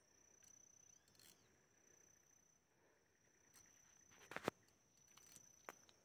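Near silence with a faint, steady, high-pitched insect whine. A few sharp clicks break it, the loudest about four and a half seconds in and another shortly before the end.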